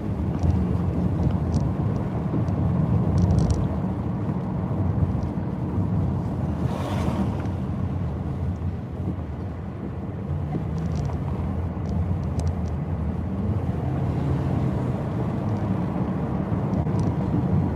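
Steady road and engine noise inside a moving car's cabin, with a brief rushing swell about seven seconds in.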